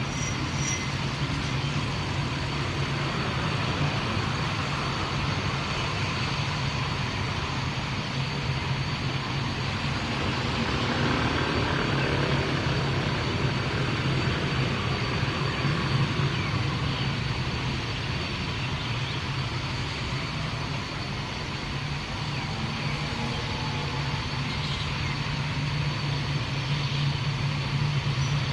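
A steady low engine drone with a thin continuous high whine over it, holding even with no rise or fall.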